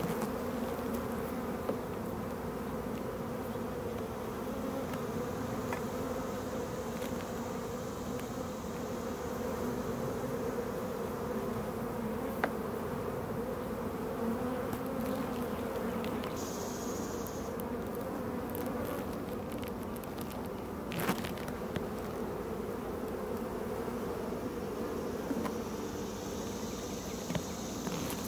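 Many honeybees buzzing around an open hive: a steady, dense drone, with a sharp click about twelve seconds in and another about twenty-one seconds in.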